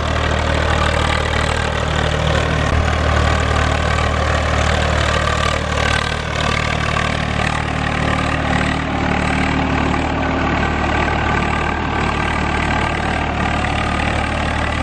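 Swaraj 855 tractor's diesel engine running steadily under load while it pulls a laser land leveller's scraper bucket through dry, loose soil.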